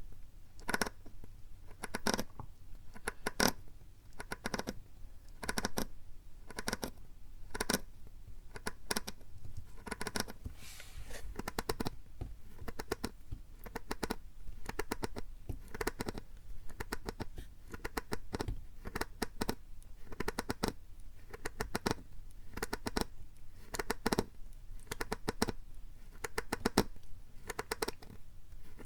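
Plastic PET bottle handled close to the microphone as an ASMR trigger: quick irregular clicks and crackles of the plastic, with a short rustle about ten seconds in.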